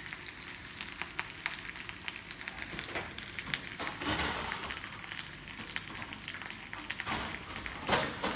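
Thinly sliced potato frying in olive oil in a pan on a gas burner, crackling with many small pops as it starts to crisp. A brief, louder rushing noise comes about four seconds in, with shorter ones near the end.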